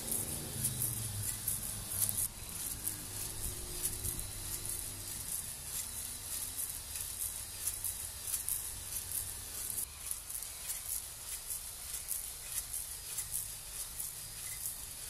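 Cordless drill spinning a flex (ball) hone that is worked up and down in a cast-iron cylinder bore of a 7.3 IDI diesel block, honing a crosshatch for new piston rings to seat on. A high, rapidly pulsing hiss runs throughout, over a lower motor hum that eases after about ten seconds.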